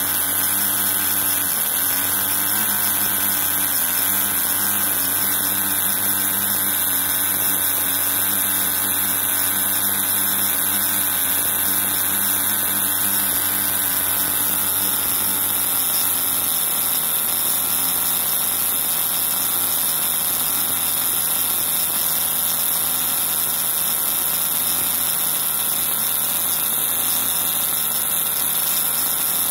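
Cox two-stroke glow engine turning a propeller, running steadily at low throttle with its exhaust throttle ring closed. About halfway through, the air intake valve is also closed and the engine's note changes as it slows further.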